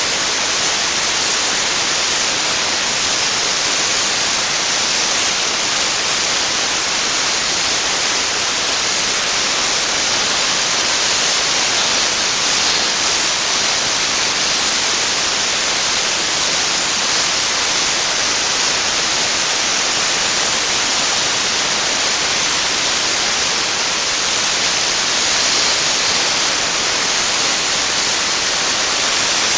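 Dry-ice blasting gun spraying into an engine bay: a loud, steady hiss of the compressed-air jet carrying dry-ice pellets, unbroken throughout.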